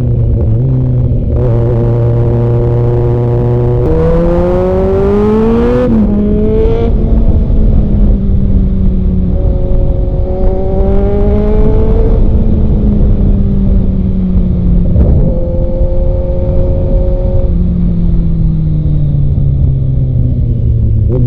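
Kawasaki Z900 inline-four engine under way. The revs climb between about four and six seconds in, then the note drops in steps several times, as with gear changes, alongside stretches of steady running and a constant low rush of wind or road noise.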